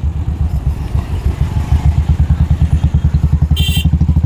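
A small two-wheeler engine running at low speed, heard from on board as a steady rapid low pulsing over a rough lane. A brief high-pitched tone sounds near the end.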